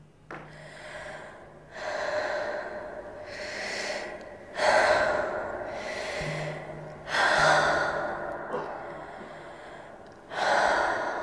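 A woman breathing heavily: a series of loud, gasping breaths in and out, each about a second long, coming every second or two.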